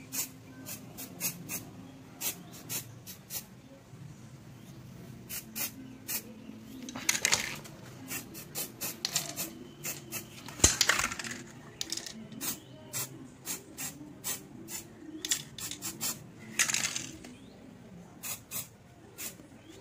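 Aerosol can of black spray paint in use on a motorcycle exhaust joint: scattered sharp metallic ticks throughout, and three short hissing sprays, about a third of the way in, around the middle, and near the end. The paint goes over the exhaust weld joint to keep rust off it.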